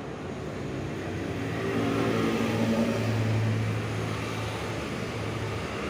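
A motor vehicle engine passing by, its hum swelling over a couple of seconds and fading again, over a steady background hum.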